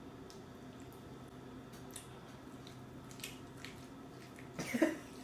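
Quiet room tone with a few faint small clicks, then a short, louder vocal sound from a person near the end.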